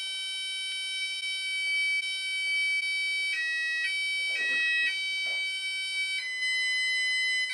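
Texecom Premier Elite alarm system sounding its exit tone while it arms in part set: a continuous high-pitched electronic beep tone. From about three seconds in it steps between pitches a few times, then holds a slightly lower pitch near the end.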